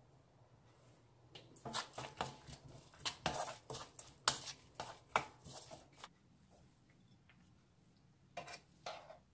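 A wooden spatula stirring and tossing sliced king oyster mushrooms in a nonstick frying pan: a run of quick scrapes and knocks from about a second and a half in that stops around six seconds. Two short scrapes follow near the end.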